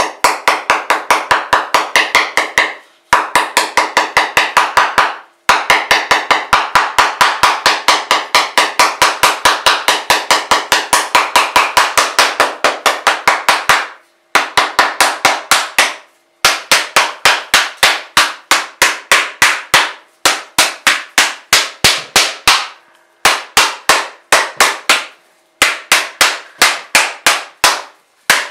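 Small hammer tapping a husked coconut's hard shell quickly and evenly, about five strikes a second, in runs broken by short pauses, to crack it open.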